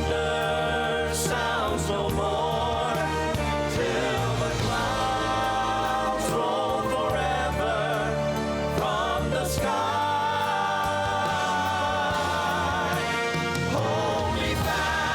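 Male Southern gospel quartet singing in close harmony, holding long sustained chords with vibrato over instrumental backing music.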